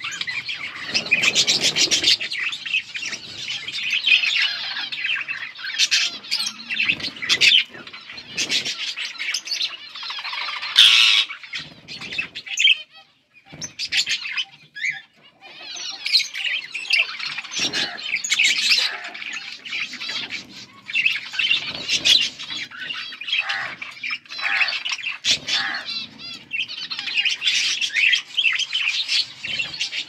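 A flock of budgerigars chirping and warbling in a constant busy chatter, with some louder squawks mixed in. The chatter drops away for a couple of seconds about halfway through, then picks up again.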